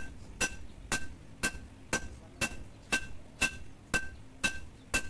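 Blacksmith's hand hammer striking red-hot steel from an old power tiller blade on a steel anvil, about two even blows a second, each with a short metallic ring: hot forging of the blade.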